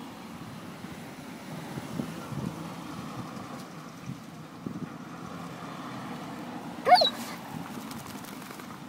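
A dog panting over a steady background hum, with one short, sharply rising yip about seven seconds in.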